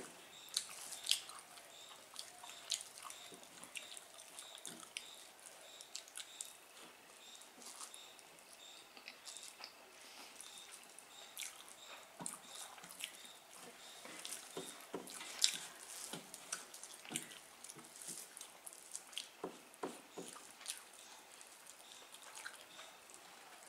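Faint, irregular eating sounds: small wet clicks and smacks of people chewing, and fingers mixing rice and curry on metal plates.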